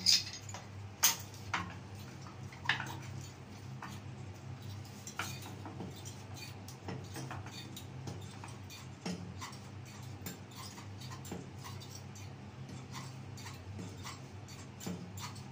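Scattered clicks and clinks of a pipe wrench's metal jaws on a plastic water pipe while a threaded plastic fitting is screwed on and tightened, with a few sharp knocks in the first three seconds and lighter ticks after, over a steady low hum.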